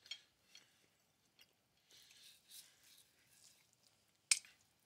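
A person chewing a mouthful of food close to a headset microphone, with soft wet mouth clicks. Near the end there is a single sharp click, the loudest sound here.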